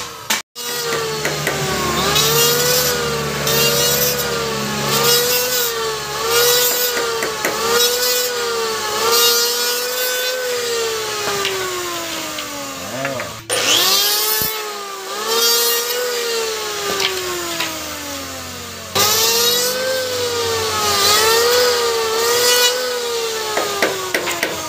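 Electric hand planer running and cutting wood: a motor whine that sags in pitch and recovers roughly once a second as the blades take each cut. The sound breaks off briefly about half a second in and again around halfway, then resumes.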